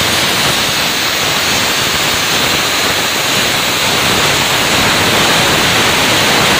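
A 40A air plasma cutter's torch cutting through sheet metal: a loud, steady hiss of the compressed-air plasma arc, unbroken throughout.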